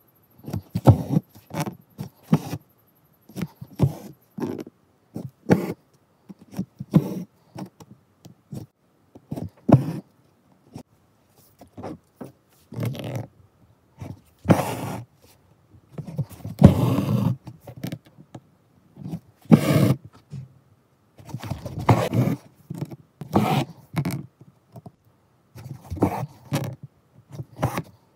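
Embroidery thread being drawn through taut cloth with a needle: short rasping pulls close to the microphone, coming irregularly about once a second.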